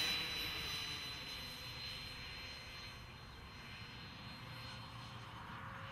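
Electric ducted fan of a Freewing 80 mm A-4 Skyhawk model jet in flight: a steady high whine with a lower tone beneath it, fading over the first few seconds as the jet draws away, then holding.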